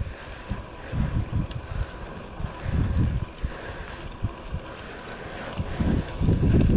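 Wind buffeting the microphone of a chest-mounted GoPro on a moving road bike: an irregular low rumble that surges every second or so over a steady rush of air.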